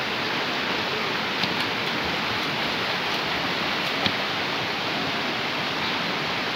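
Shallow river water rushing steadily over stones, with a few brief splashes from people swimming in it, the sharpest about four seconds in.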